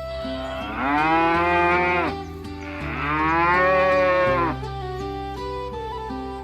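A cow mooing twice, each moo about a second and a half long, rising then falling in pitch, over soft background music with held notes.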